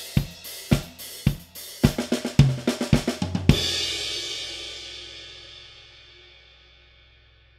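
Drum kit played in a quick, uneven run of snare and bass drum hits for about three and a half seconds, ending on a cymbal crash that rings out and slowly fades away.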